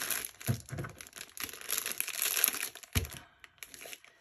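Clear plastic bag crinkling as it is handled, with a soft thump about three seconds in. The crinkling then trails off near the end.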